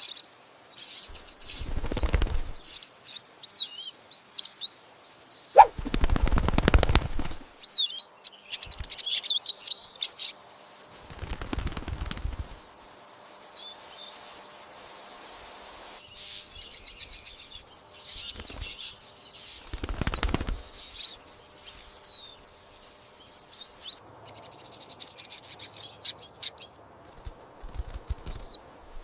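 Small bird, a young goldfinch, chirping in clusters of high, rapid chirps. Several short, loud rustling bursts come in between the chirps, the longest about six seconds in.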